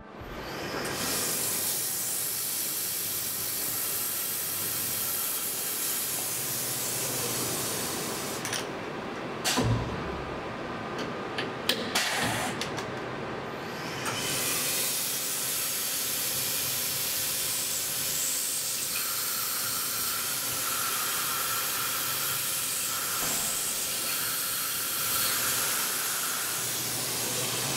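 Tormach 1100M CNC mill drilling holes in a small hub, its mist coolant spraying onto the drill with a steady hiss. The hiss drops out for several seconds about a third of the way in, with a few sharp clicks and knocks, then comes back.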